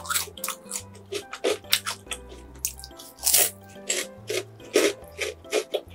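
A person chewing crisp bread crust close to the microphone, with irregular crackly crunches, over background music.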